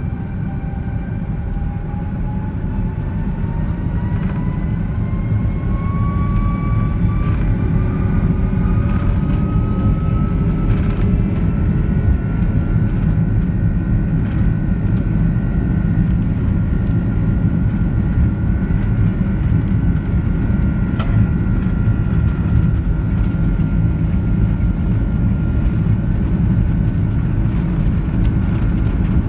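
Rolls-Royce Trent 700 high-bypass turbofans of an Airbus A330-300 spooling up to takeoff thrust during the takeoff roll, heard from inside the cabin over the wing. A deep rumble sits under a whine that climbs in pitch over about the first ten seconds, then holds steady and loud as the aircraft accelerates down the runway.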